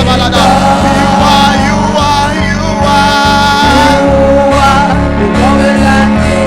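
Live gospel worship music: a band plays a slow song with a steady beat in the bass and held keyboard notes, while voices sing along.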